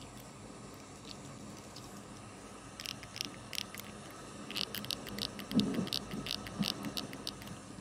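Hot Wheels 1/64 diecast Volkswagen ID R being worked in the fingers and squeaking: a run of short, sharp high squeaks, several a second, starting about three seconds in.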